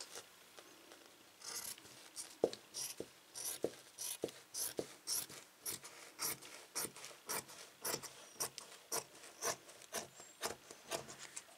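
Scissors cutting through folded fabric, snipping about twice a second in a steady run of strokes.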